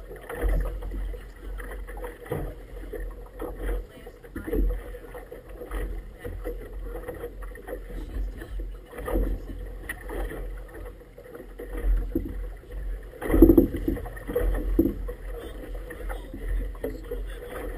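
Choppy river water slapping and splashing against the rubber tube of an inflatable boat, in irregular knocks with wind rumbling on the microphone. The loudest slaps come about three-quarters of the way through.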